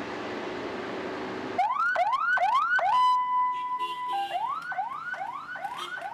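A steady rushing noise that cuts off about one and a half seconds in. An electronic siren then sounds in quick rising whoops, about two and a half a second, holds a steady tone for about a second, and goes back to the whoops.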